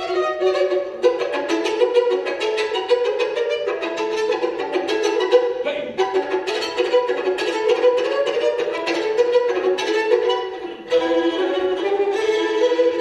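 A gadulka, the Bulgarian bowed folk fiddle, playing a fast melodic solo line with a string orchestra accompanying. The notes change quickly, with a short break about two seconds before the end.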